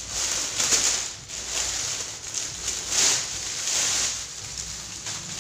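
Clear plastic packaging crinkling and rustling in uneven bursts as a folded curtain is unwrapped and pulled out of its bag.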